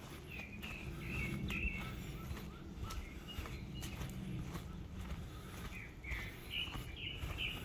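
Footsteps walking on a forest path, with a distant bird giving short chirps: a run of them in the first couple of seconds and another near the end.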